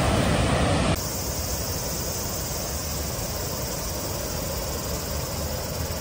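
Waterfall cascading over rocks, a loud steady rush of water. About a second in it cuts off suddenly to a quieter, even rushing noise.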